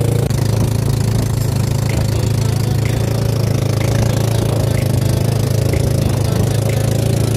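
Engine of a motorized outrigger boat (bangka) running steadily at cruising speed, a constant low drone.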